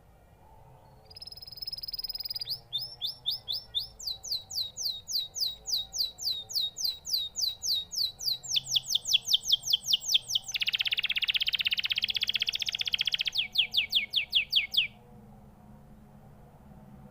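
Domestic canary singing one long song that starts about a second in. It opens with a held high whistle, then fast runs of repeated sweeping notes, about five a second, with a harsh buzzy trill in the middle. It closes with more quick repeated notes and stops about two seconds before the end.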